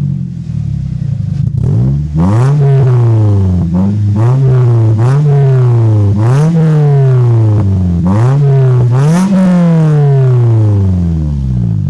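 Toyota Corolla engine through an aftermarket exhaust tip with no turbo whistle fitted: idling, then revved in about six quick blips that rise and fall back, the highest near the end, before settling to idle.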